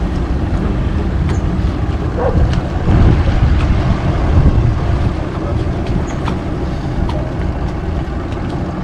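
Tour boat's motor running steadily as the boat moves across the water, with wind buffeting the microphone.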